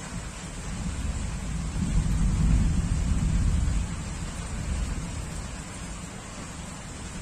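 Steady heavy rain falling, with a low rumble of thunder that swells about two seconds in and fades away after about four seconds.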